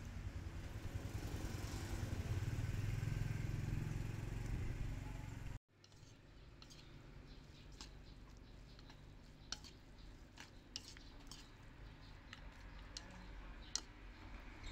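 Low engine rumble of a passing motor vehicle, swelling and easing, which cuts off suddenly about five and a half seconds in. After that, light scattered clicks of a metal spoon and chopsticks against the bowl as the noodles are tossed.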